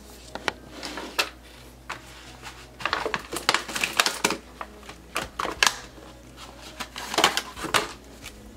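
Plastic wrapping and cardboard packaging of an LED light strip being handled: crinkling and rustling in irregular bursts with small clicks, busiest in the middle and near the end.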